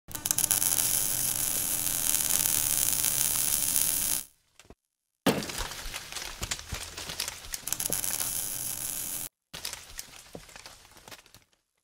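Crackling, hissing sound like an electric welding arc, in three bursts: a steady one of about four seconds, a second of about four seconds with sharper pops, and a shorter one that fades out near the end.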